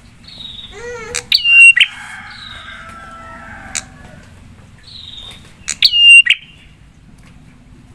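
Prinias (prenjak) calling: two loud bursts of sharp, rapid calls, one about a second in and one near six seconds, with softer falling whistles between them.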